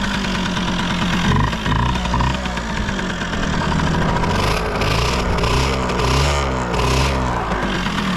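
Yamaha TLM50's small two-stroke single running just after start-up, blipped up and down repeatedly, with several quick revs in the second half. It runs with no abnormal noises, by the seller's account.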